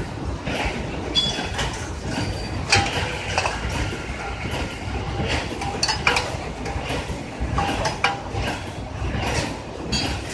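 Roll bag cutting machine running: a steady mechanical rumble with sharp clicks and clinks at irregular intervals of about a second.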